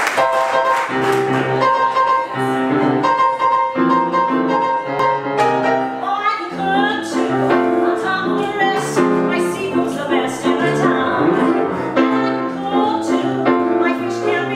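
Grand piano playing a show-tune introduction, joined about six seconds in by a woman singing with vibrato over the piano accompaniment.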